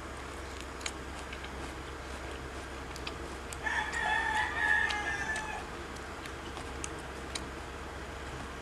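A rooster crowing once, a call of about two seconds near the middle, over a steady low hum and a few faint clicks.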